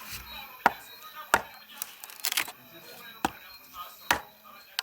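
Wood campfire crackling: sharp, irregular snaps and pops, about five of them, with a quick cluster about two seconds in.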